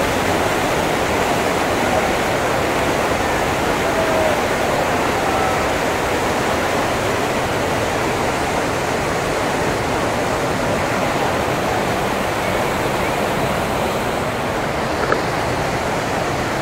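Steady rush of the Hogenakkal waterfalls and the churning whitewater of the Kaveri river below them, heard close up at water level.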